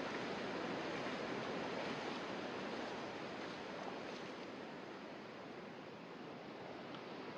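Steady rush of water from a rain-swollen canyon stream, easing somewhat from about three seconds in.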